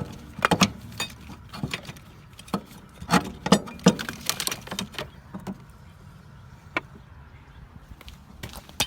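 Metal hand tools and motor-mount hardware clinking and clanking as they are handled, with a quick run of sharp knocks in the first five seconds, then only a few scattered clicks, a couple of them near the end.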